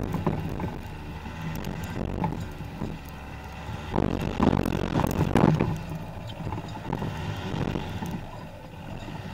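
Skoda Octavia TDI driving over a sandy, rutted forest track, heard from a camera mounted low beside the front wheel: tyre and suspension rumble with wind buffeting the microphone and scattered small ticks. The noise swells twice, around four and five and a half seconds in.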